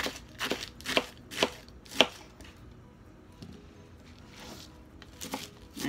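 Kitchen knife slicing through a head of iceberg lettuce onto a plastic cutting board: crisp chops about twice a second, pausing about two seconds in, then a few more near the end.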